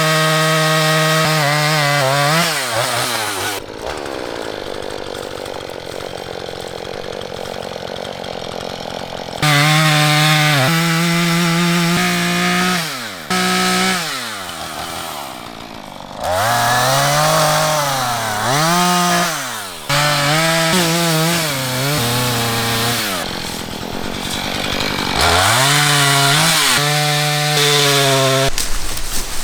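Chainsaw bucking a felled dead tree trunk into log lengths: the engine revs up between cuts and drops in pitch and bogs down while the chain is in the wood, rising and falling repeatedly as several cuts are made.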